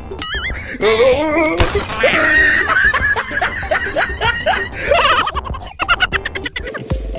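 Comedy soundtrack of background music with added laughter and cartoon sound effects: warbling, wobbling tones early on, then a run of short falling notes.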